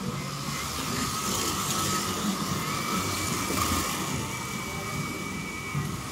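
Scalextric slot cars running along the track straight, their small electric motors giving a steady high whine over a rushing noise that grows louder in the middle as the cars pass.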